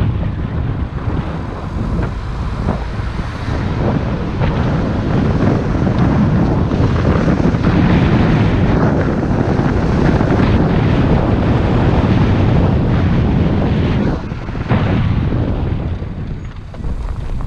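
Car driving along a narrow road with wind buffeting the camera's microphone over engine and tyre noise. The noise eases off near the end as the car slows almost to a stop.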